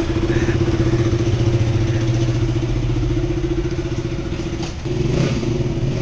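KTM Duke motorcycle engine idling steadily, with a brief dip about five seconds in.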